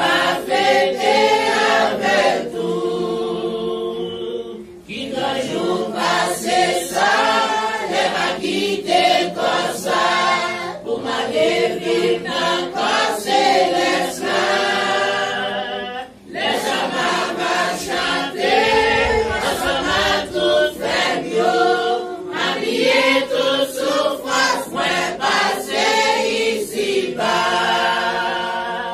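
Church congregation singing a hymn together from hymnals, in long phrases with brief breaks about five and sixteen seconds in.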